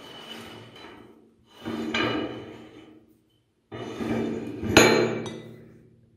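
Hand-cranked metal meat grinder being handled: two spells of metal grating and scraping, the second as its threaded front ring is unscrewed and taken off, with a sharp metallic clink in it.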